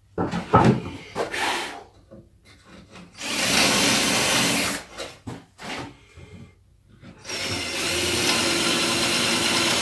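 Cordless drill boring into a pine stair-step board, likely drilling the holes for 6 mm wooden dowels: two steady runs, a shorter one about three seconds in and a longer one from about seven seconds. A few short knocks of wood being handled come before the first run.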